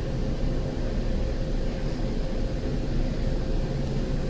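Steady hum and rumble inside a Boston Green Line light-rail car, with a constant low drone and a higher steady hum.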